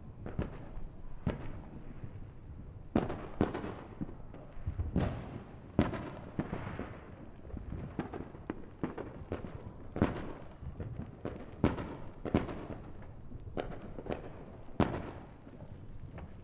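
Fireworks and firecrackers going off at a distance: a steady irregular string of sharp bangs and pops, one to several a second, some louder than others, over a continuous low rumble.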